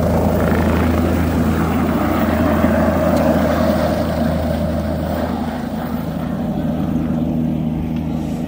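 Helicopter running on the helipad: a steady rotor and turbine noise over a low hum, easing off slightly in the second half.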